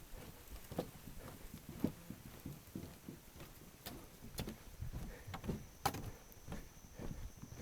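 Footsteps of a person walking along a dry dirt trail, a steady pace of about two steps a second.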